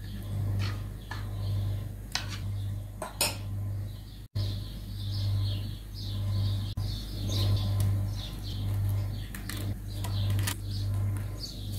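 A metal spoon clinks and scrapes against a glass baking dish a few times, then a few lighter clicks come later on. Birds chirp in the background after about four seconds, over a steady low hum.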